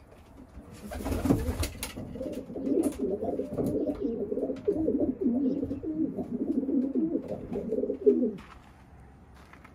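Homing pigeons cooing, an unbroken low warbling that starts about a second in and stops near the end. A short rustle comes about a second in, and a sharp knock comes just before the cooing stops.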